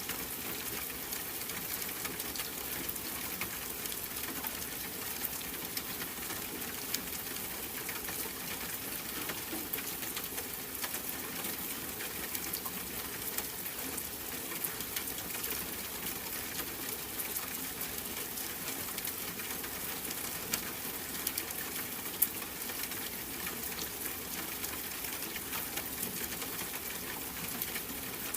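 Steady rain: an even hiss with a dense patter of individual drops and an occasional louder drop.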